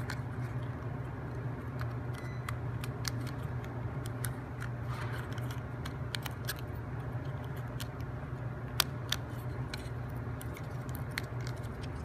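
Laser-cut plywood parts of a wooden mechanical lock model clicking and tapping as they are handled and a ring is fitted into its grooves on the cylinder: scattered light clicks, one sharper click about nine seconds in, over a steady low hum.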